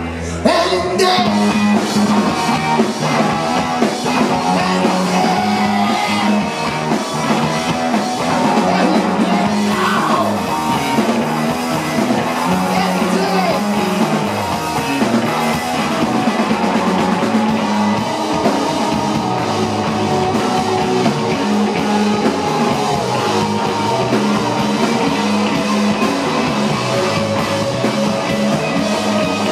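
Live rock band playing loud: electric guitar, electric bass and drum kit, with the full band crashing in about half a second in and playing on without vocals.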